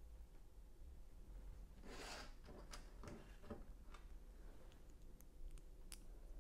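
Lego pieces being handled: a brief plastic scraping rustle about two seconds in, then a few faint sharp clicks of plastic bricks and a couple more near the end.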